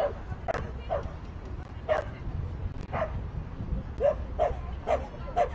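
A dog barking in short, sharp barks, about eight of them roughly a second apart, coming closer together near the end, over a steady low outdoor rumble.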